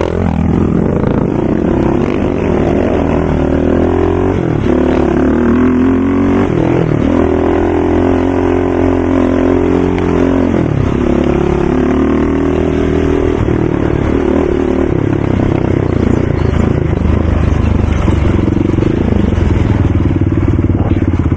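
ATV engine running under throttle, its pitch rising and falling repeatedly as the rider accelerates and eases off.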